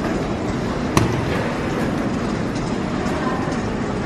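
Airport baggage carousel running: a steady rumbling clatter from its moving metal slats, with one sharp knock about a second in.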